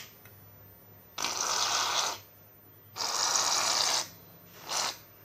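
Aerosol can of shaving foam spraying in three hissing spurts, two of about a second each and a short one near the end, as foam is dispensed into a bowl of slime mixture.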